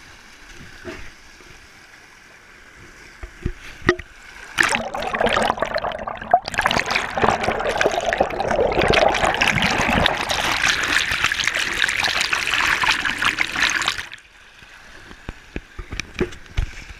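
Shallow creek water rushing over rocks, with a few knocks from handling the waterproof action camera. About four and a half seconds in, the camera goes under the surface and a loud churning, bubbling rush of water against it runs for about ten seconds. It cuts off sharply when the camera comes back out.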